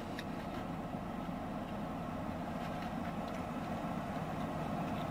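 Steady running noise of a car, heard from inside its cabin.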